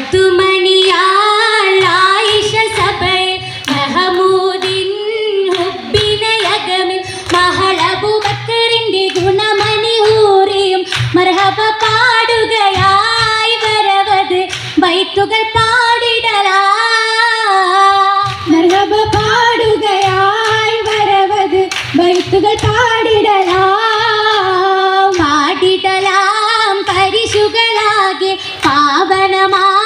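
Female voices singing an Oppana song (a Mappila song) together in unison, with sharp hand claps from the dancers keeping a steady rhythm under the song.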